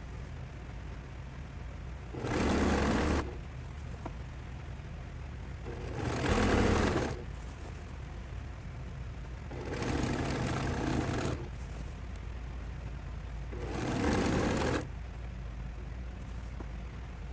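Electric sewing machine stitching a pieced quilt seam in four short runs of about a second each, stopping in between. A steady low hum runs underneath.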